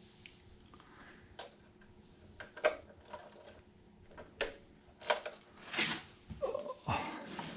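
Irregular clicks and clinks of hand tools and metal parts being handled during engine repair: a handful of separate sharp knocks, coming more often and louder toward the end.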